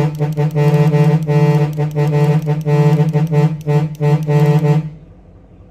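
Truck horns sounding one of the programmed patterns of a Cicada horn controller: a quick run of short blasts that stops about five seconds in.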